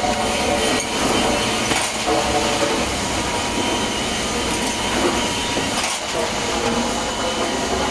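Chain transfer conveyors of a timber infeed line running, carrying softwood boards: a steady mechanical clatter and hum with a few faint knocks.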